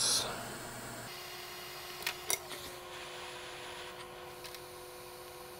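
Quiet workbench room tone: a low hiss with a faint steady hum that comes in about a second in, and two light clicks a little past two seconds.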